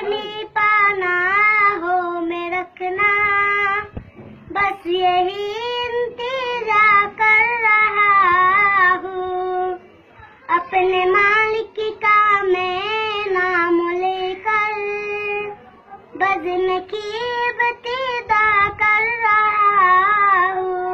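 A child's solo singing voice holding long, ornamented notes with a wavering pitch, in four phrases with short breaks about 4, 10 and 16 seconds in.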